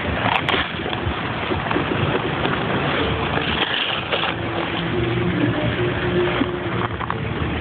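Ice-skate blades gliding and scraping over rink ice, a steady rushing noise heard close up from a moving skater. A faint steady hum joins underneath from about three seconds in.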